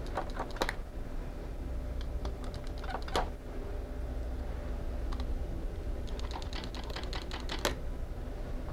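Nylon zip-tie tails being cut off with a utility knife: scattered small clicks and snips, with a quick run of clicks near the end that finishes in a sharper snap.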